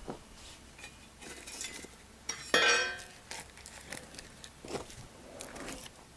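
Scattered light knocks and rustles of handling around the sawmill, with one loud metallic clank about two and a half seconds in that rings briefly before fading.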